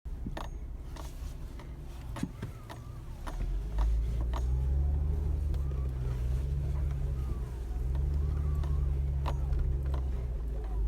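Squeaking steering on a Mercedes E350 4Matic S211, creaking and clicking as the wheel is turned, over a running car's low hum. The hum gets louder about three and a half seconds in, dips briefly around seven seconds, then holds.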